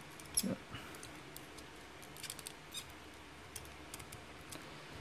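Small plastic toy robot parts of an Iron Factory Bruticus figure being handled and folded into place: a few faint, short plastic clicks and ticks. The most distinct click comes about half a second in, and a cluster of small ones follows around two to three seconds in.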